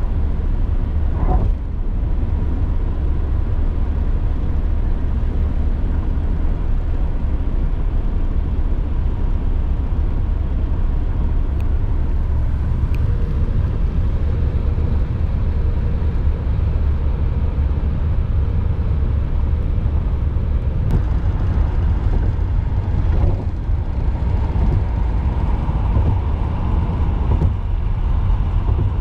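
Steady low rumble of a moving vehicle, unbroken throughout.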